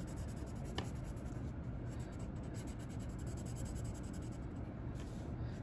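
Graphite pencil shading on paper: steady back-and-forth scratching strokes as an area is filled in dark.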